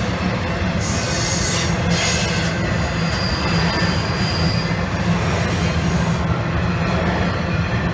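Norfolk Southern train rolling past with a steady low rumble. Brief high wheel screeches come about one and two seconds in, and a thin high squeal holds from about three to five seconds in.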